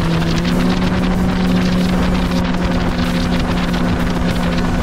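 Mercury Racing 300 outboard running steadily at speed, its hum holding an even pitch, over the rush of hull spray and wind on the microphone.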